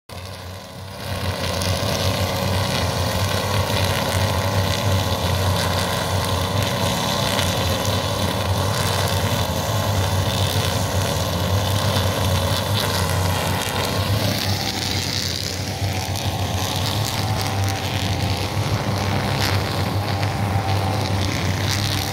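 Several backpack brush cutters with nylon trimmer line running together steadily, their engines droning as they cut grass. The sound comes up about a second in.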